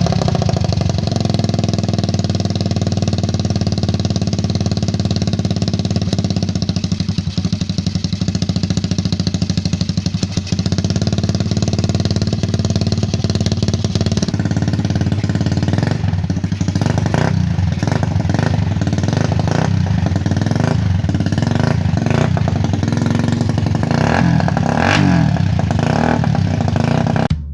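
Suzuki Raider 150 motorcycle engine, fitted with a 68 mm big-bore block, running loud through an open exhaust pipe. It holds steady for about the first half, then is revved in repeated blips.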